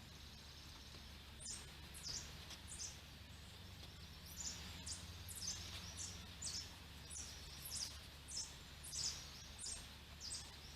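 A small bird chirping over and over, short high chirps every half second or so starting about a second and a half in, over a low steady hum.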